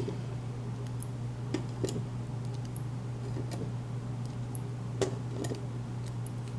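Small metal lock parts and tools being handled, giving scattered light clicks and taps over a steady low hum.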